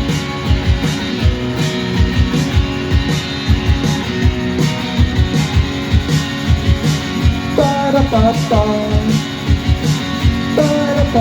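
Live rock band playing an instrumental passage: strummed electric guitar over a steady drum beat and bass. A higher melodic line enters about seven and a half seconds in and returns near the end.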